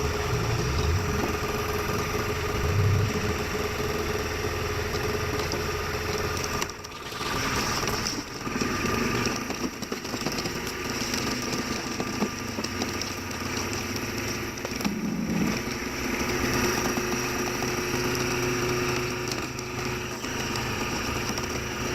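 Engine of a large hydraulic log splitter running steadily, a continuous machine hum that briefly dips about seven seconds in.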